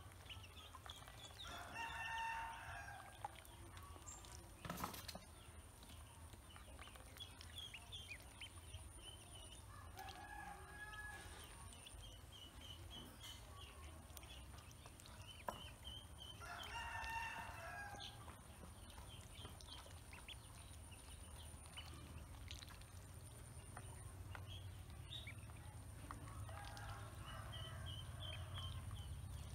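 Ducklings peeping in short, high repeated runs, with a rooster crowing four times in the background, each crow about a second and a half long. A single sharp click about five seconds in.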